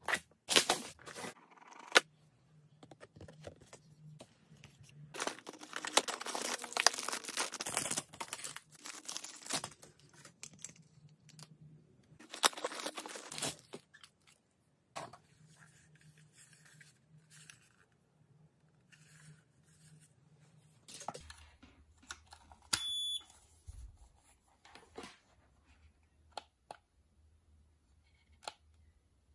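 Cardboard box and plastic packaging of an IPL hair removal device being opened and handled: rustling and tearing with scattered clicks, loudest in two spells near the middle. Late on, the device gives a single short, high electronic beep.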